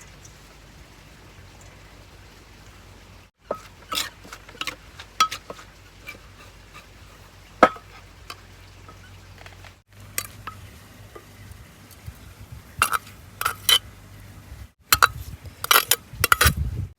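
Kitchenware clinking: utensils knocking against pots and dishes in a series of sharp, irregular clinks that begin a few seconds in and come thickest near the end, over a faint steady hum.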